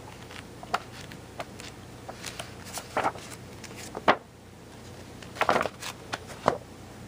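Handling noise: scattered light clicks and rustles as the thick stapled paper bundle is moved about, with one sharper knock about four seconds in.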